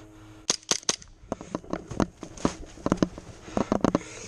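A run of irregular sharp clicks and cracks, several coming in quick clusters of two or three, over a faint steady hum.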